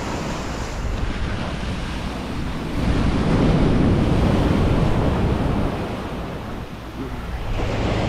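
Ocean surf breaking and washing up the sand, with wind buffeting the microphone. A wave breaks and rushes in about three seconds in, the loudest part, then the wash fades back.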